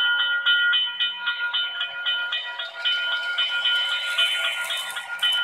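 Model railroad grade crossing bell, an electronic bell sound from the crossing's sound module, ringing in a steady rapid series of about four dings a second: the photocell sensors have detected an approaching train and activated the crossing. A hissing noise swells about midway.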